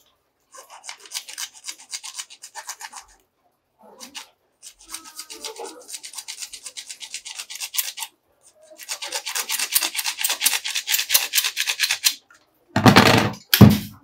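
A hacksaw blade cutting through a green PVC pipe in quick back-and-forth strokes, in three bouts with short pauses between them. Near the end come a couple of loud knocks as the pipe and fittings are handled.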